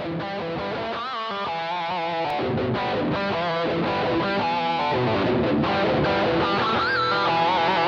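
Background music: guitar-led rock, fading in with bending lead notes.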